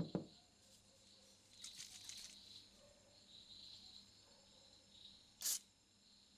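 WD-40 sprayed from an aerosol can through its thin straw onto the rusted nuts of a cast-iron charcoal iron: a soft hiss about two seconds in and a short, sharp half-second spray burst near the end. A knock is heard right at the start.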